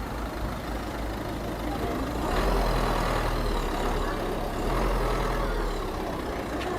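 A heavy road vehicle passing on a street over steady traffic noise. Its low engine rumble swells about two seconds in and eases off near the end.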